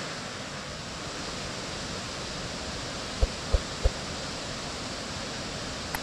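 Steady rushing of a waterfall in heavy flow, its churning white water a constant noise. Three quick low thumps come close together just past the middle.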